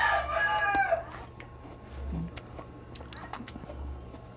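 A rooster crowing, the drawn-out call falling away and ending about a second in. After it, faint scattered clicks of a crisp kamias fruit being bitten and chewed.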